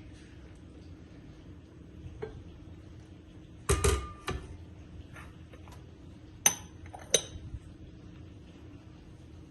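Kitchenware being handled: a light tap, then a short clatter of knocks about four seconds in, and two sharp ringing clinks a little over a second apart near the end.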